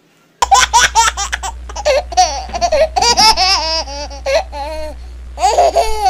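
High-pitched laughter: a quick run of short bursts starting about half a second in, then squealing giggles that slide up and down in pitch, over a steady low hum.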